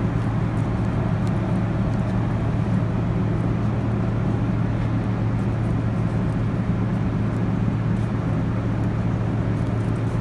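Steady low drone of a ship's machinery, an unchanging hum at an even level, with a few faint clicks of a knife working a fish on a plastic cutting board.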